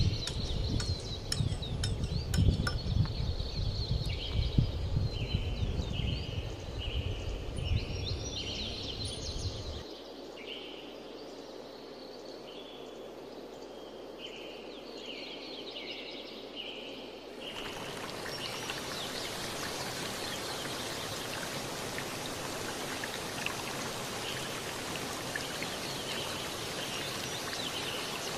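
Outdoor ambience: wind rumbling on the microphone for the first ten seconds, while a short high chirp repeats about once or twice a second. From about seventeen seconds in, the sound switches suddenly to a steady, even hiss.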